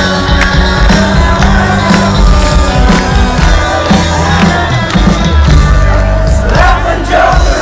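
Rock band playing live without vocals: a steady drum beat of about two hits a second over loud bass and guitars. Crowd voices shout and sing along near the end.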